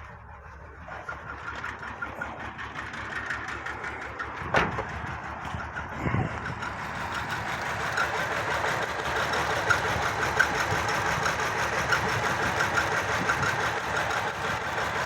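Nissan VQ35 V6 engine running on only three cylinders, bank 1 (cylinders 1, 3 and 5), with the other bank deliberately shut off so that half the cylinders misfire; it runs unevenly with a knocking noise. It builds in level over the first several seconds, with two sharp knocks a little after 4.5 s and around 6 s in.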